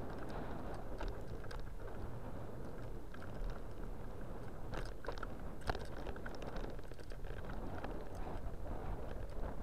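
Steady wind and tyre rumble picked up by a camera on a moving bicycle on a paved cycle path, with scattered light clicks and rattles, thickest around the middle.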